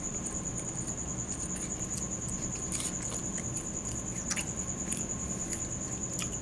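A person chewing a soft, crumbly biscuit, with scattered small mouth clicks, over a steady high-pitched electronic whine.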